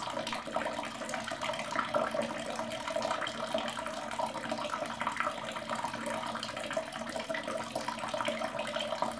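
Water running steadily from a wall tap and splashing below it as hands are wetted in the stream.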